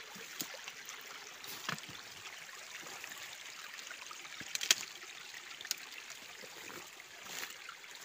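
Small forest stream trickling steadily, with scattered short snaps and rustles of footsteps through undergrowth on a muddy trail; the loudest snap comes a little past halfway.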